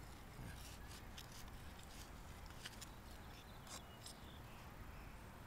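Hand trowel digging in loose garden soil: a few faint, short scrapes and gritty ticks, spread irregularly over the first four seconds, over a low steady background rumble.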